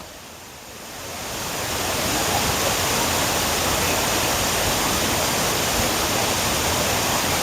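Waterfall rushing: a steady roar of falling water that swells up over the first two seconds and then holds even.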